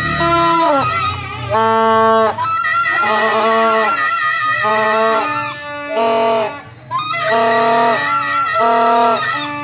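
Plastic toy trumpet horns blown in a string of short, loud toots, about a dozen blasts, each dipping slightly in pitch as it ends. At times two horns at slightly different pitches sound together.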